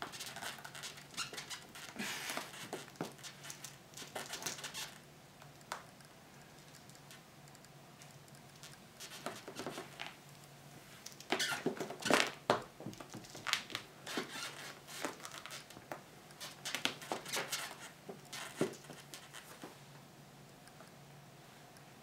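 Light scratching, rustling and tapping in scattered bursts as a kitten paws and clambers around a leather office chair and a plush toy brushes against it. The busiest, loudest bursts come about halfway through, with quieter spells before and near the end.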